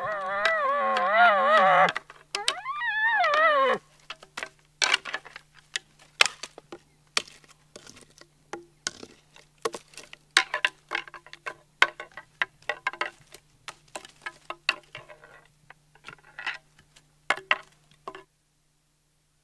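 Elk calling on a mouth diaphragm call: a wavering moaning bugle for about two seconds, then a shorter call that rises and falls. Then elk antlers tapped and tickled together in light, irregular clicks and knocks, a rattling meant to stir a bull's curiosity; it stops about a second before the end.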